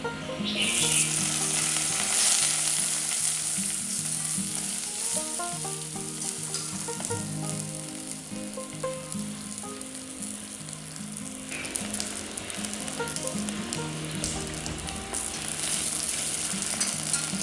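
A steady sizzling hiss that starts about half a second in, over background music.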